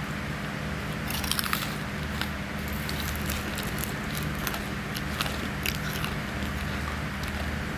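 A crunchy snack being chewed: irregular crisp crunches, a quick cluster of them about a second and a half in, over a steady low hum.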